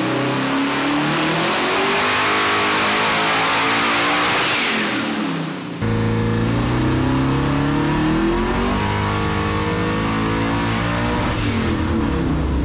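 Twin-turbo LS V8 running hard under load on a hub dyno during a power pull. About six seconds in the sound changes abruptly and a deep low end comes in.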